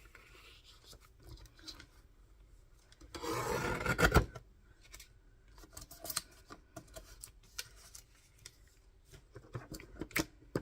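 Paper and card being handled on a work table: one noisy sliding sweep about a second long, three seconds in, ending in a sharp tap, with soft scattered ticks and rustles around it.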